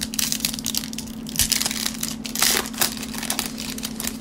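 Foil trading-card pack wrapper crinkling as hands pull it open, a dense run of irregular sharp crackles, loudest about halfway through.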